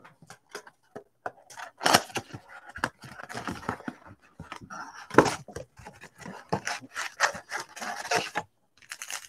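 Cardboard Playoff football-card box being torn open and its packs pulled out: a run of tearing, scraping and crinkling handling noise, with sharper snaps about two seconds and five seconds in.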